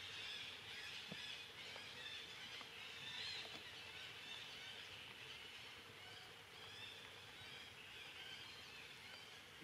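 Quiet forest ambience: a dense chorus of faint, high chirping calls over a low steady hum, with a few soft ticks.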